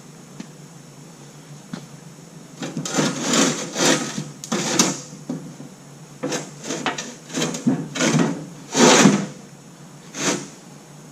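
Truck battery box being shifted and set against its frame brackets: about a dozen short scraping and clunking noises starting about three seconds in, the loudest near the end.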